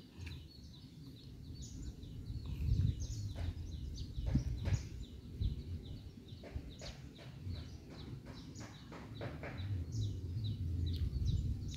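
Birds chirping in many short, quick, falling calls over a low rumbling background noise.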